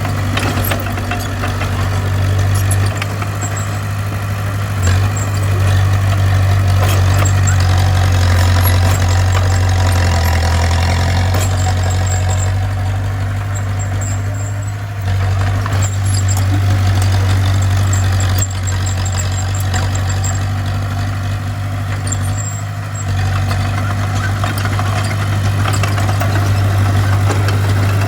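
Bulldozer's diesel engine running under load with a steady low drone, dipping briefly a couple of times as the machine works.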